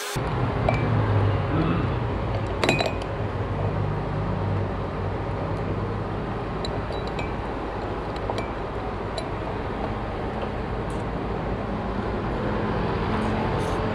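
An engine running steadily at low revs, with a few light metallic clinks over it.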